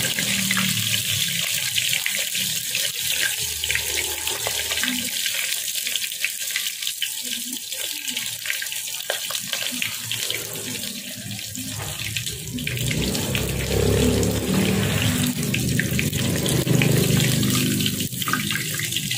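Chicken pieces deep-frying in hot oil in a wok: a steady sizzle with frequent small crackles and pops.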